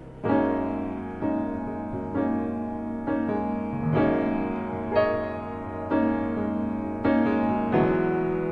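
Background music: piano chords struck about once a second, each ringing on and fading before the next.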